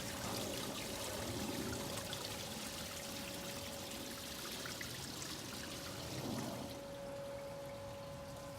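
Water pouring steadily into a swimming pool, with a steady hum underneath; about seven seconds in the splashing thins and the hum stands out more.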